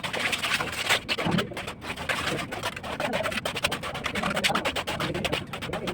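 Bird calls against a dense run of short clicks and knocks.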